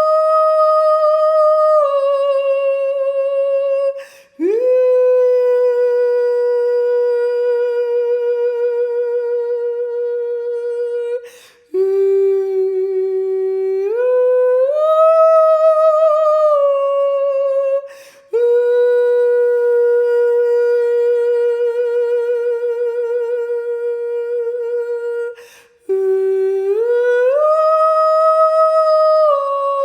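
A woman's voice singing long, wordless sustained notes with a slow vibrato, sliding up or down to a new pitch every few seconds. She pauses briefly to breathe four times, about every seven seconds.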